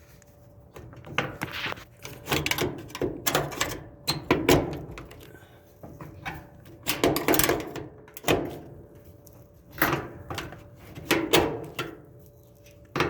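Sheet-metal panels and plastic retaining clips of a Kenmore clothes dryer being handled and pressed to release the panel: a dozen or so irregular knocks, clicks and rattles.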